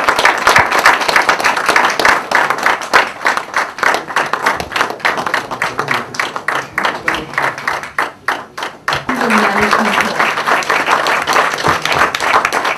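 An audience applauding: a dense, steady patter of many hands clapping. It thins briefly about eight seconds in, then swells again.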